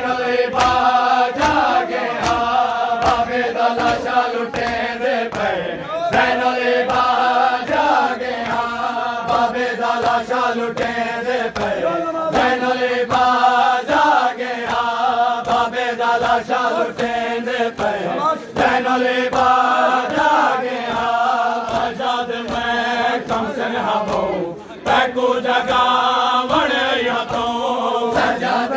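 A male noha reciter leads a mournful lament chant in phrases, with a crowd of mourners performing matam, beating their chests in a steady slapping rhythm.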